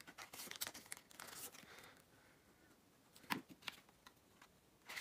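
Faint crinkling of plastic binder sleeves as photocards are handled and slipped into them, with a couple of light taps about three seconds in.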